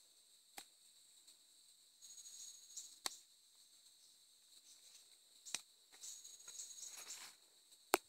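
Faint, steady high-pitched chirring of crickets or other insects, with light scraping and a few sharp clicks from a rubber-tapping knife working the bark of a rubber tree.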